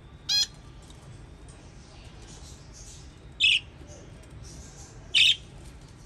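Budgerigars giving three short, loud calls: a clear pitched chirp near the start, then two harsher squawks at about three and a half and about five seconds in.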